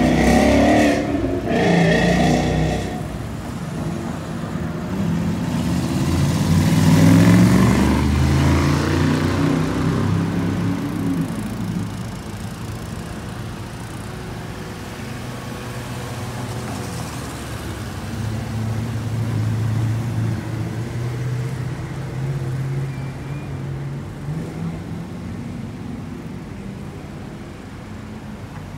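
Classic cars and pickup trucks driving slowly past one after another, their engines running at low speed. The loudest passes come in the first few seconds and again around seven to nine seconds in, then steadier engine sound from the cars following in line.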